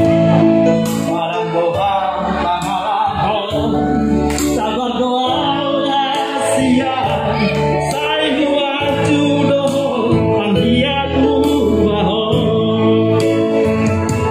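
A man singing a Batak song into a handheld microphone, amplified, over an instrumental backing with held bass notes.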